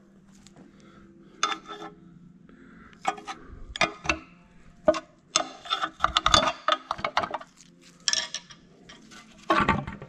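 Flathead screwdriver prying the front timing-chain cover off a Toyota 2AZ four-cylinder engine: irregular metallic clicks, knocks and short scrapes as the cover is worked loose.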